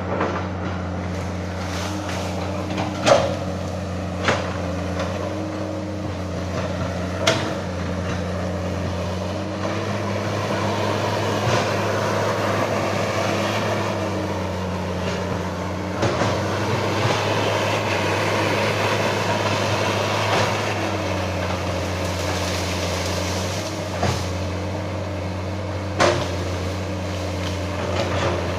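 Hydraulic excavator's diesel engine running steadily while it works, with a few sharp metal clanks, the loudest about three seconds in and another near the end.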